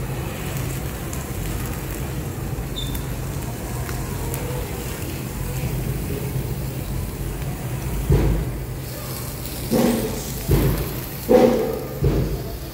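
Steady background noise of a restaurant dining area with a constant low hum. About eight seconds in, several short, louder pitched sounds break in, one after another.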